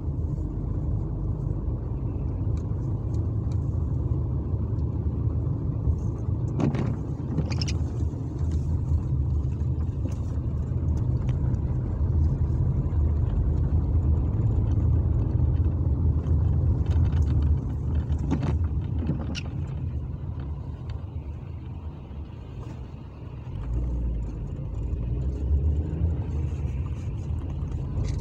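Car interior noise while driving on a wet road: a steady low engine and road rumble, with a few brief clicks. The rumble drops briefly a little after twenty seconds, then picks up again.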